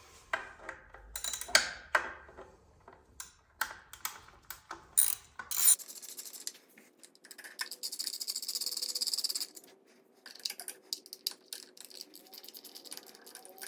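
Sharp metallic clicks and clinks of hand tools and small bolts while the bolts holding a motorcycle's transmission filter cover plate are taken out. A brief rustling hiss comes in about eight seconds in.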